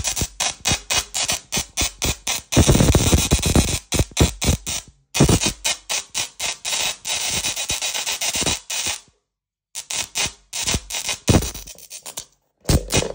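A musical Tesla coil's plasma arc playing electronic music as a harsh, buzzy sound with a fast, steady beat. It cuts out briefly a few times.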